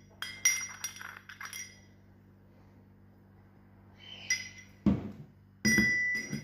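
Clinking knocks and taps of kitchen utensils against a mortar, just after cloves have been ground to powder in it. There is a quick run of light taps in the first two seconds, then two or three more near the end, the last one ringing on for about a second.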